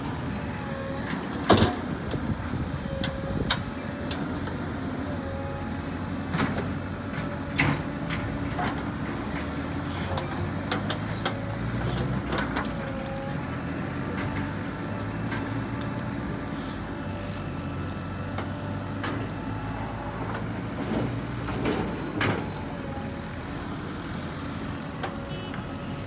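Diesel engine of a JCB 3DX backhoe loader running steadily as the machine moves and digs, broken by several sharp knocks or clanks.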